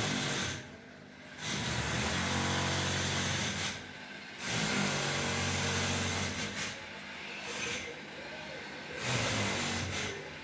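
Aquarium aeration: air-stone bubbles with a steady hiss over a low mechanical hum, which drops away briefly twice.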